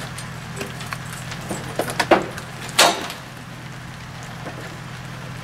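A few sharp knocks about two seconds in, then a louder scraping burst, from masonry work on a chimney scaffold, over a steady low mechanical hum.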